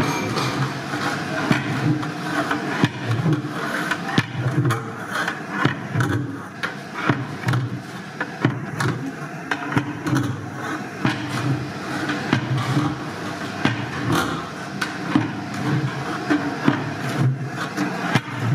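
A long metal ladle scraping and knocking against the sides of a large metal cooking pot as thick haleem is stirred, with many irregular sharp clicks. A steady low rumble runs underneath.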